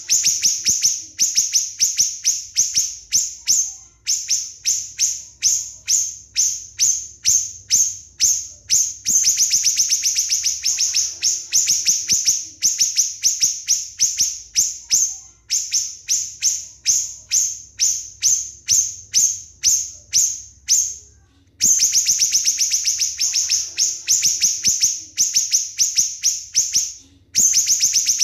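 Small songbird's rapid, sharp high chip notes, three or four a second, in runs of several seconds broken by short pauses. This is a masteran recording of bird song, played to teach caged songbirds.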